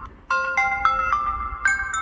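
Samsung Galaxy S10e ringtone: a bright melody of bell-like mallet notes that starts about a third of a second in, after a brief gap, and plays a string of single notes.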